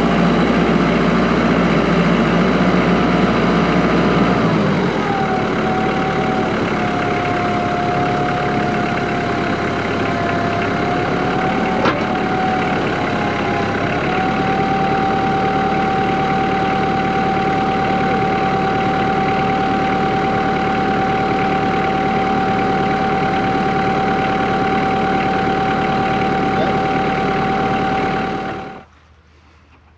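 Kubota L3940 tractor's three-cylinder diesel engine running. It slows about five seconds in, then runs steady until it cuts off suddenly near the end.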